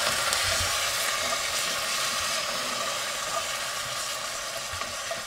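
Chopped onions and stock sizzling in a cast-iron Dutch oven over a charcoal fire as a wooden spoon stirs them, a steady hiss with a few faint scrapes.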